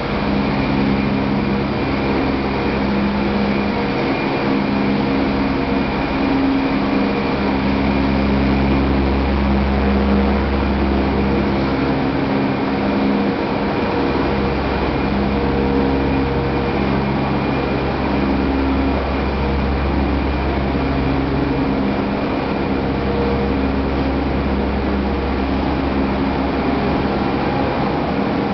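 Corn wet-milling starch-processing machinery running steadily: a continuous mechanical hum and hiss made of several steady tones, under a low drone that swells and eases every few seconds.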